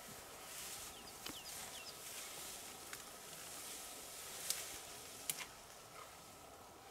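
Faint outdoor bush ambience: a soft steady hiss, a few short high chirps about a second in, and two sharp clicks a little after four and five seconds in.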